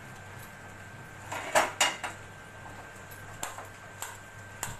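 A few sharp clicks and knocks from a gas stove and its hand-held metal spark lighter being handled to light the burner. The loudest pair comes about a second and a half in, followed by single lighter-like clicks roughly every half second to second.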